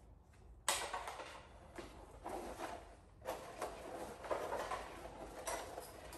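Extension cord being wound by hand onto a plastic Cordpro cord storage reel: uneven spurts of plastic rubbing and rattling as the reel turns and the cord slides in, with a sharp knock about a second in.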